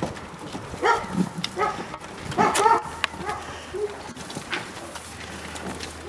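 Goats and sheep bleating: several short calls in the first three seconds, the longest one falling in pitch, then quieter shuffling of the flock.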